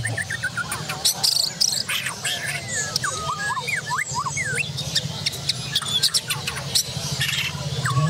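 Many caged songbirds singing at once, Borneo white-rumped shamas (murai batu) among them: quick rising and falling whistles, chirps and sharp ticking notes over a steady low hum.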